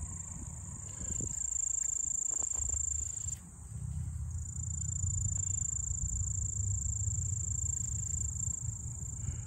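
Insects trilling in one steady, very high note that breaks off for about a second some three and a half seconds in, over a steady low rumble.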